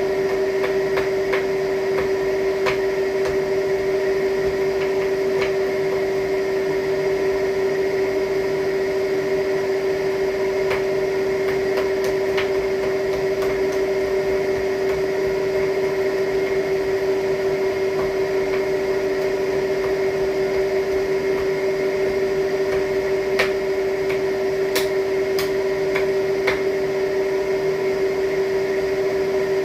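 A steady machine hum at one unchanging pitch, with scattered light clicks over it.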